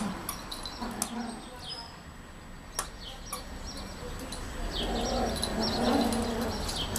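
Two puppies play-fighting over a toy: scuffling with scattered sharp clicks and short, high, falling squeaks, and a rougher stretch of noise a little after the middle.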